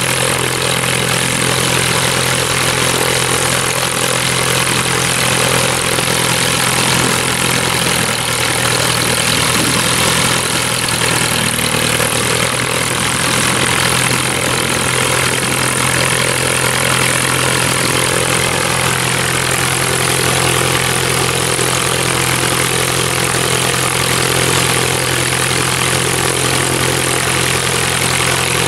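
Beagle Pup light aircraft's piston engine and propeller idling steadily on the ground.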